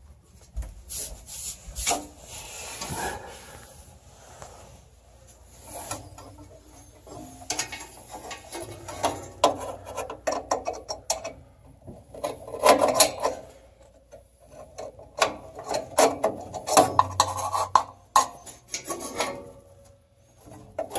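Irregular scraping, rubbing and clicking of metal on metal as a new 120-volt igniter cartridge is worked into its metal sleeve in a pellet stove.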